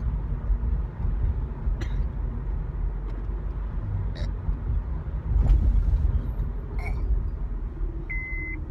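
Steady low rumble of a car's interior, with a few faint clicks and a louder swell about two-thirds of the way through. Near the end a high electronic beep starts.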